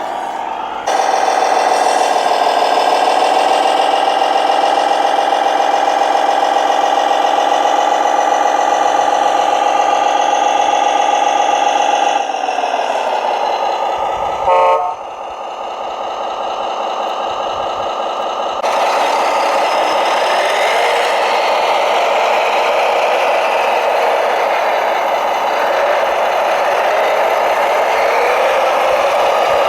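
Radio-controlled scale construction machines running: a steady motor whine that sinks in pitch about 12 seconds in, a short horn toot a couple of seconds later, then a rougher motor sound for the rest.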